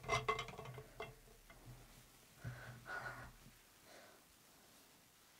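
Plastic shaker cup being picked up and handled: a quick run of clicks and knocks that trails off within the first second, then a couple of soft rubbing sounds about two and a half to three and a half seconds in.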